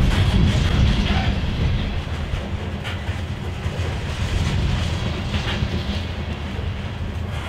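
Freight train of covered hopper cars rolling past: a steady low rumble of steel wheels on the rails, with occasional clicks as wheels cross rail joints.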